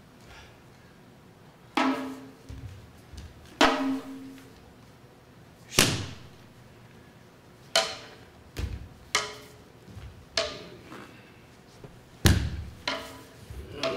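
A hand-held uchiwa-daiko fan drum struck with a stick in single strokes, about two seconds apart at first and coming closer together in the second half. Several strokes leave a short low ringing tone.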